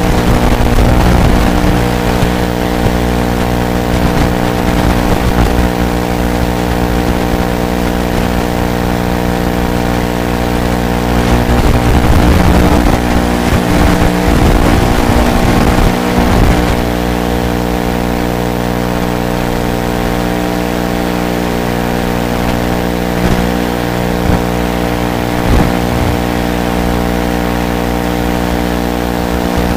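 Small FPV racing quadcopter's electric motors whining and rising and falling with the throttle, loudest about halfway through, over a steady buzz.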